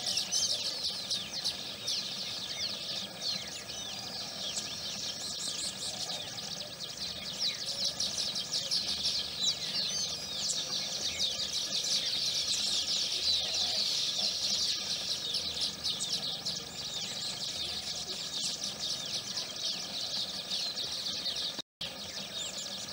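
A colony of baya weavers chattering and chirping around their hanging nests: a dense, continuous twittering of many birds at once. The sound cuts out for an instant near the end.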